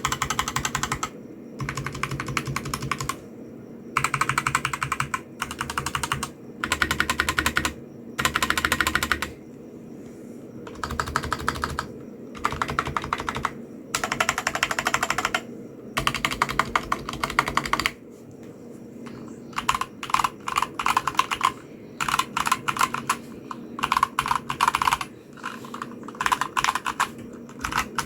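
Typing on a Glorious GMMK full-size mechanical keyboard with stock Gateron Brown switches and ABS keycaps, on a metal frame that gives the keystrokes a somewhat high-pitched sound. The key clicks come in runs of a second or two with short pauses between them, and grow faster and more continuous about two-thirds of the way in.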